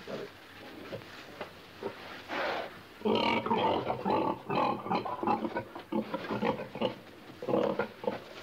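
Pigs grunting in a pen: scattered short grunts, then a dense run of loud grunts and oinks from about three seconds in, easing off near the end.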